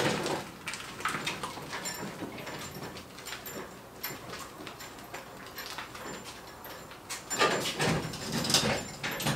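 Boat trailer carrying a small boat with an outboard motor being pushed by hand across a concrete garage floor: clicking and rattling of the trailer and its load as it rolls, with a knock at the start and louder rattling for a couple of seconds near the end.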